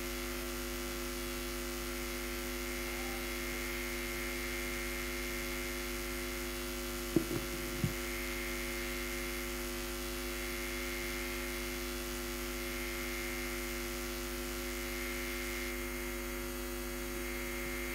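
Steady electrical mains hum and buzz from the audio system, with two brief knocks about seven and eight seconds in.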